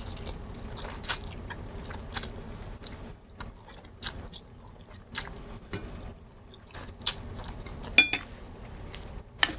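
Close-up eating sounds: spaghetti being slurped and chewed, with many small wet mouth clicks, and a fork clinking on the bowl, the sharpest clink about eight seconds in.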